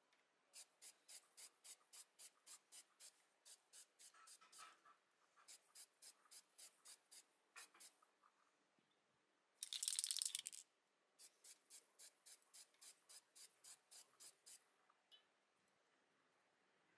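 Aerosol spray-paint can being shaken, its mixing ball rattling about four times a second in three bouts, with one spray burst of about a second between the second and third bouts.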